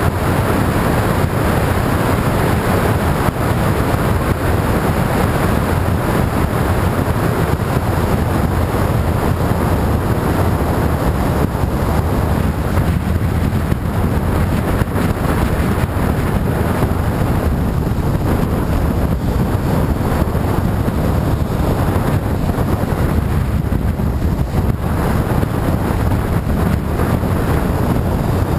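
Motorcycle engine running at a steady cruising speed, with wind rushing over the microphone.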